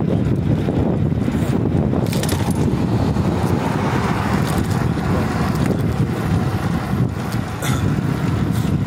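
Steady low rumble of an e-bike rolling along a concrete sidewalk, picked up through a shaking phone mount, with a few brief clicks.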